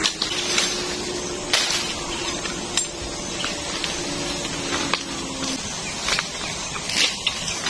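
Bamboo stems knocking and clacking, with irregular sharp cracks, and bamboo leaves rustling as a person pushes through and handles a thick clump of bamboo.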